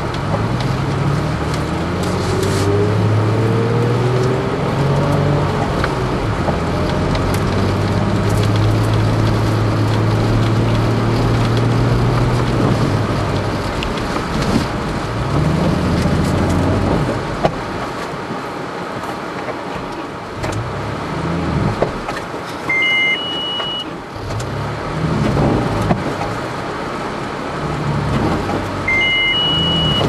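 Toyota FJ Cruiser's 4.0-litre V6 revving hard, heard from inside the cabin, as the tyres spin in deep snow with the vehicle stuck. The revs are held high at first, then rise and fall in repeated bursts. Twice near the end a short electronic two-tone beep sounds.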